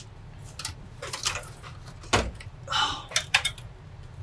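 Clicks and a heavy clunk of metal and plastic as the Alienware Aurora's hinged power-supply cage is swung up out of the case, with a short scrape and a few more sharp clicks near the end.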